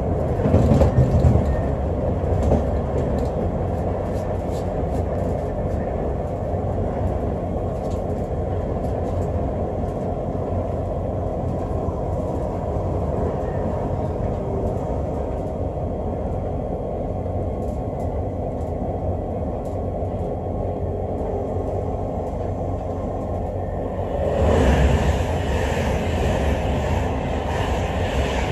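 Steady running noise inside a British Rail Class 365 electric multiple unit at speed: a continuous low rumble of wheels on rail. It grows louder and brighter for the last few seconds.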